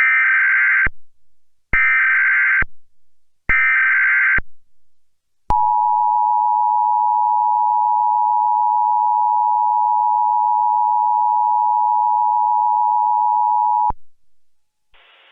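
Emergency Alert System (SAME) header: three short bursts of buzzing digital data tones, each under a second and about a second apart. Then a single steady alert attention tone sounds for about eight seconds and cuts off abruptly.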